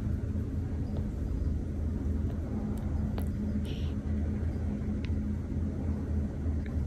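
Young kitten purring: a steady low rumble, with a few faint ticks of handling and a brief soft rustle just past halfway.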